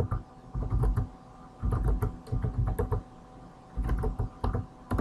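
Computer keyboard typing: quick runs of keystrokes in several bursts with short pauses between them.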